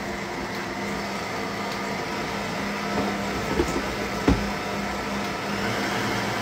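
Electric stand mixer running at a steady speed, its motor humming as it beats melted butter into sugar and custard powder in a stainless steel bowl. A few short knocks come around the middle.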